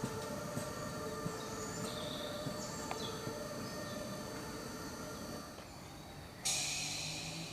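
Battery-electric narrow-gauge locomotive running with a steady electric whine and occasional clicks from the track. About six and a half seconds in, a sudden loud high hiss starts and slowly fades. Short bird calls are heard a couple of seconds in.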